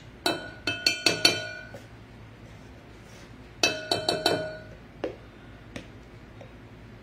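Metal tablespoon tapping against a glass measuring cup, ringing clinks as spoonfuls of cornstarch are knocked into it: a quick run of five or six clinks about a second in, another run near the middle, then a couple of single taps.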